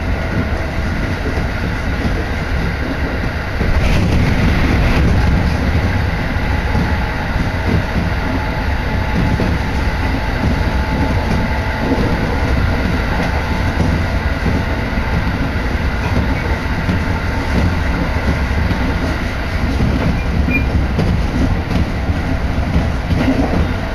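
Steady running noise of a Tokaido Line electric train heard from inside the passenger car: a rumble of wheels on the rails, briefly louder about four seconds in.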